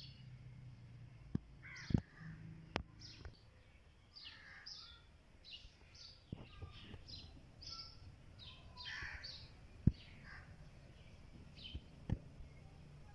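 Faint outdoor birdsong: many birds calling and chirping in short high notes throughout. Several sharp clicks break in, the loudest about two seconds in and near ten seconds.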